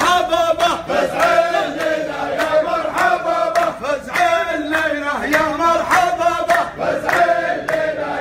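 A group of men singing a celebratory chant in unison, led by one loud voice, over steady rhythmic hand-clapping at about two to three claps a second.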